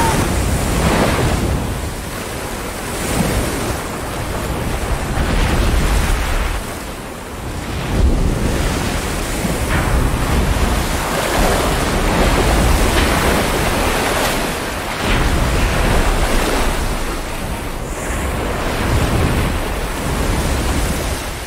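Storm at sea: heavy waves breaking and washing over a surfaced submarine's deck in strong wind, a steady rush that swells and eases as the seas hit, with deep low rumble.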